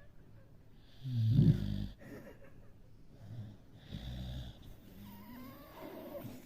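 Small dog snoring in her sleep: a loud snore about a second in and another around four seconds, with fainter snoring breaths between.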